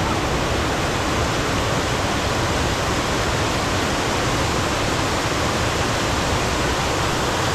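Waterfall rushing loudly and steadily, close to the microphone.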